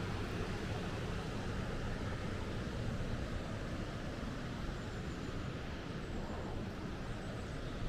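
Steady rushing of a stream or waterfall in a canyon, with a few faint high bird chirps in the second half.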